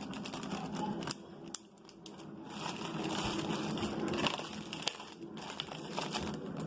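Plastic zip-top bag crinkling and rustling as it is squeezed to push the air out, with scattered sharp crackles.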